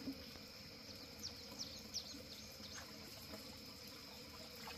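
Faint outdoor ambience: a steady high insect drone, with a few short, falling bird chirps around the middle.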